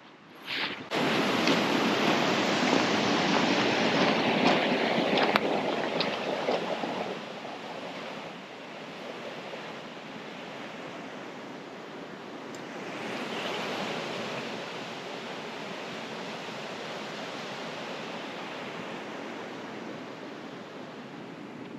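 Shallow stream water flowing and rushing over stones, a steady noise that is loudest for the first several seconds and then carries on more softly.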